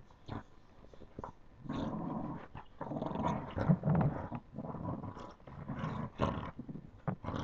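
Boxer puppies play-fighting, growling in repeated bouts from about two seconds in, with a few short clicks of mouthing and snapping before and between.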